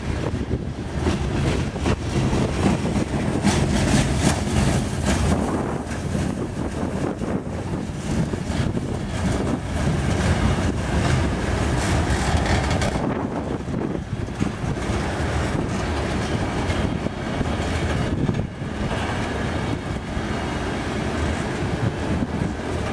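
Freight train's covered hopper and tank cars rolling past, their steel wheels rumbling and clicking over the rails.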